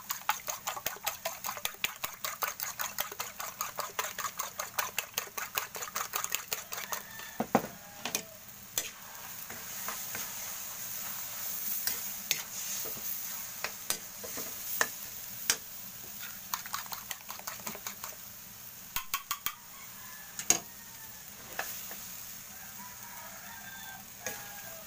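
Spatula stirring mashed eggplant in a metal wok, clicking quickly against the pan at about five strokes a second for the first seven seconds. After that the food sizzles steadily, with scattered clacks of the spatula on the wok.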